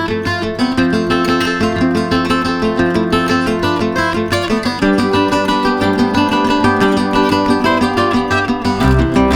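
Background music: a plucked, strummed acoustic guitar tune with a steady pulse, joined by a deeper bass part near the end.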